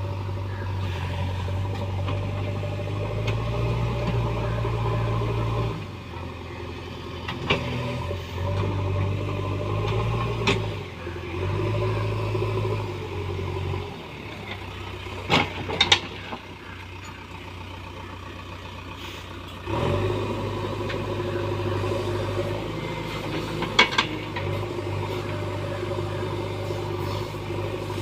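JCB backhoe loader's diesel engine running under changing load, its revs dropping for several seconds in the middle and picking up again. A few sharp knocks ring out over it, the loudest in the middle.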